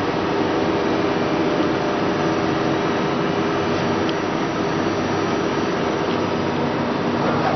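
Okuma LB-15 CNC lathe running: a steady mechanical hum with several held tones over a hiss, a lower tone joining near the end.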